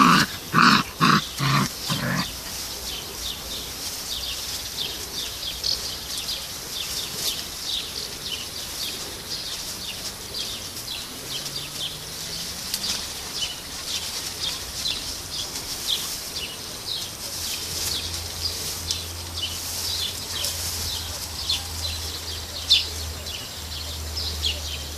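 Six-week-old Labrador–golden retriever cross puppies at play, with a quick run of about six short grunts in the first two seconds. For the rest of the time there is a steady scatter of short, high bird chirps.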